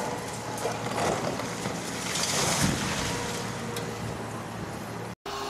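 A concrete wall section of a building toppling under a long-reach demolition excavator and crashing onto the rubble pile, a loud rush of falling concrete and debris peaking about two seconds in, over the steady hum of the excavator's engine. The sound cuts off abruptly near the end.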